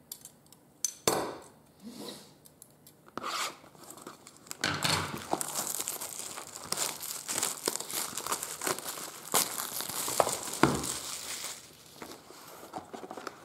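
Plastic wrapping on a sealed box of trading cards being crinkled and torn open. A few scattered rustles and taps, then steady crinkling and tearing from about five seconds in, easing off near the end.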